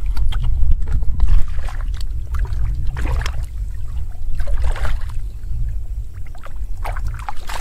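Hands sloshing and splashing through shallow muddy water while groping for fish, in short irregular splashes over a steady low rumble.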